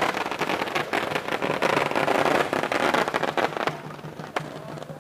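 Strings of firecrackers going off in a fast, dense crackle that thins out about three-quarters of the way in, leaving a few scattered pops.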